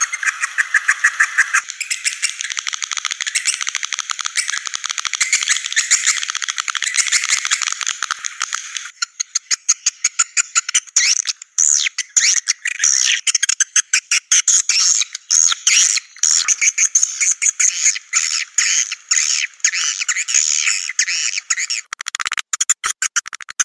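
Swiftlet call-sound lure recording (a "sambor" track): dense, rapid chirping and twittering of edible-nest swiftlets, all high-pitched. About nine seconds in it turns choppier, in short broken runs.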